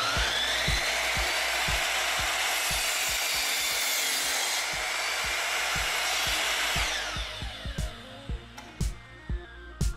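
FEMI 1050-3D electric mitre saw running: its motor whine rises as it spins up at the start, holds steady for several seconds, then falls away as the saw winds down about seven seconds in. Background music with a steady beat plays throughout.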